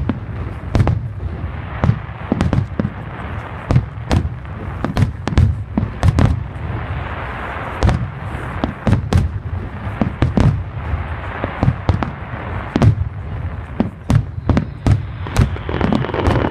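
Fireworks going off continuously: a dense, irregular run of sharp bangs and booms, several a second, over a steady low rumble.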